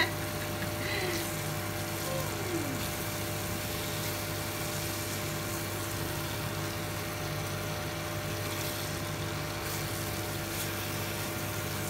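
Induction cooktop humming steadily with a fan-like whir, with a few faint scrapes of a wooden spatula stirring sweet potato chunks in sticky caramelized brown sugar in a steel pan.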